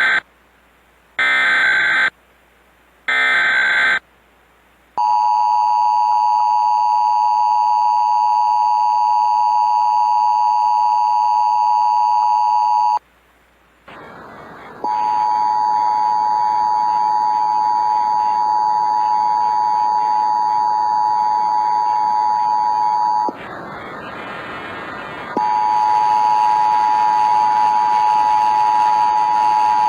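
Emergency Alert System SAME header: three short, warbling digital data bursts, followed by the two-tone EAS attention signal, a steady, harsh dual tone. The attention tone cuts out about 13 s in and resumes twice, with an airy hiss beneath it and a stretch of louder hiss in between, mimicking a distorted, poorly daisy-chained relay.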